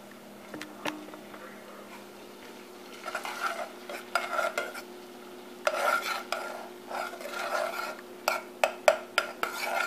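A metal spoon stirring melted butter in a saucepan, scraping and clinking against the pot in irregular spells from about three seconds in, with sharper clinks near the end. A steady low hum runs underneath.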